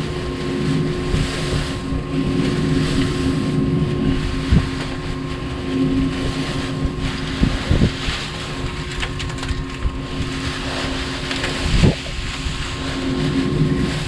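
Steady engine idle hum, with wind on the microphone and a few short knocks as corn shucks are pulled out from behind the loosened round-baler belts.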